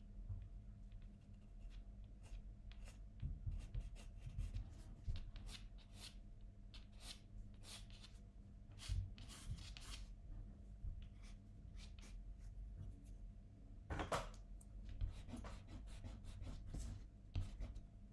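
Pencil sketching on paper: short, light scratchy strokes in irregular runs with pauses, and one longer, louder stroke late on.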